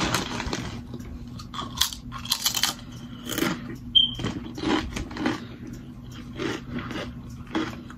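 A person crunching and chewing Miss Vickie's jalapeño potato chips, in irregular bites and chews.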